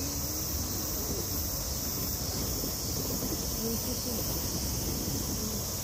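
Steady, high-pitched buzzing of a summer insect chorus, with a low rumble underneath and faint distant voices now and then.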